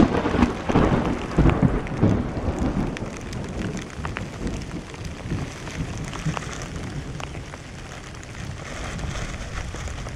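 Thunder rumbling: it starts suddenly and loudly, then fades over about four seconds. Rain falls throughout, with drops ticking against the camera.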